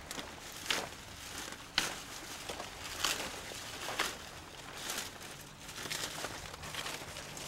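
Hands rummaging through dry leaf litter and soil at the base of a taro plant: irregular rustling and crackling, with sharper crackles about once a second.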